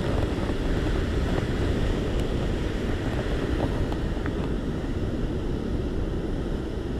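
Sea surf washing over shore rocks with wind on the microphone: a steady rushing noise, heaviest in the low rumble, with a few faint ticks.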